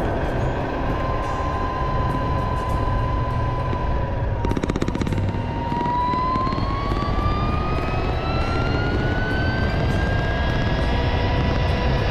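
Motorcycle riding at road speed: wind and road noise, with a thin steady whine that sags slightly about halfway through and then climbs smoothly in pitch as the bike accelerates.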